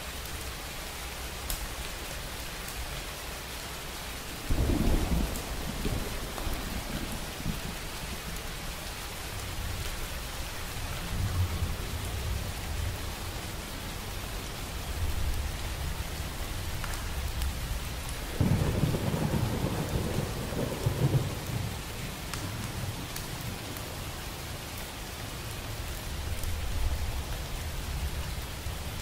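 Steady rain with rolls of thunder. One deep rumble swells in about four seconds in, and a second about eighteen seconds in, with fainter rumbles between them.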